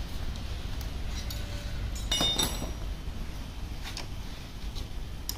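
A hand tool or small metal part clinking against metal, one louder clink with a short ringing about two seconds in and a few lighter clicks around it, over a steady low rumble.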